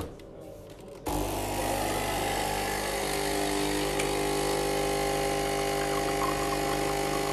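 Capsule espresso machine's pump starting about a second in and running with a loud, steady buzz as it forces water through the capsule to brew a coffee.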